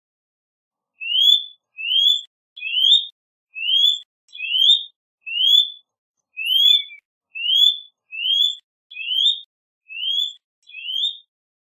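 A bird calling: a series of twelve clear, rising whistled notes, evenly spaced a little under a second apart.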